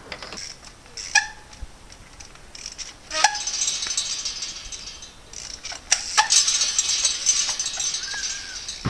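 Trials bike being hopped about: sharp metallic clicks and rattles from the bike several times, each ringing briefly, over a steady high hiss that starts about three seconds in.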